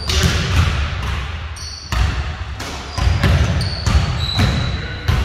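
Basketballs bouncing on a hardwood gym floor: a string of irregular thuds, each echoing in the large hall.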